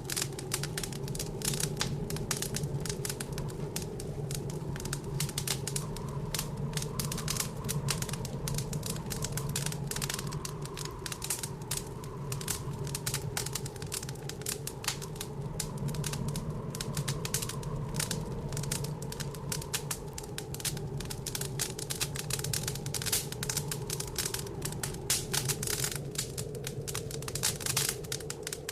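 Wood fire crackling in a fireplace, a dense run of small pops and snaps, over the low, wavering howl of blizzard wind outside.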